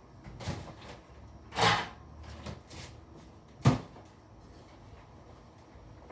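A few short knocks and clatters of a lid being set over a pot of rice, the loudest a sharp knock a little past halfway.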